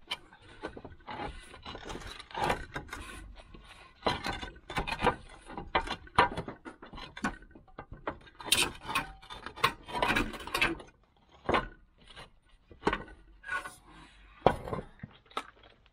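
Clay roof tiles being worked loose and lifted out by gloved hands: irregular scraping and clinking of tile against tile.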